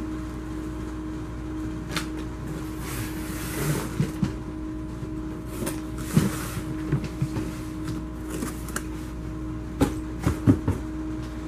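A large cardboard box being handled and opened: the lid slid off with a scraping rustle, with scattered knocks and taps of the cardboard against the metal tabletop, over a steady hum.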